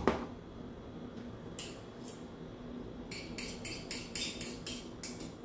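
Metal cutlery scraping: a spoon of margarine is scraped clean with another utensil over a steel saucepan. A sharp knock at the start is followed by two scrapes about two seconds in, then a quick run of about ten short scraping strokes over the last two seconds.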